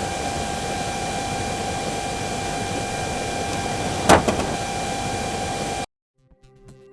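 Wind-test blower running steadily, a rush of air with a constant whine. About four seconds in comes a sharp knock, with a smaller one just after, typical of a wind-blown car door striking the car parked beside it. The sound cuts off suddenly near the end.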